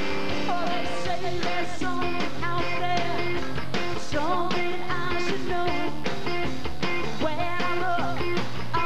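Live rock band playing: electric guitar and drums over a steady beat, with wavering sung or guitar lines on top.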